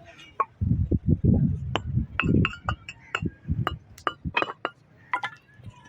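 Irregular sharp clinks and knocks, a few to several a second, with low thumps among them in the first half.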